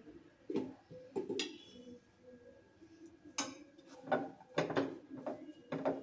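Kitchen vessels and utensils being handled, clinking and knocking against each other: about eight separate knocks spread through the stretch, one early on ringing briefly like metal.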